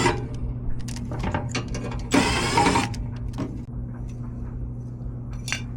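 Furnace flame sensor being scrubbed clean by hand: a loud rasping rub about two seconds in and scattered small clicks and taps of metal parts, over a steady low hum.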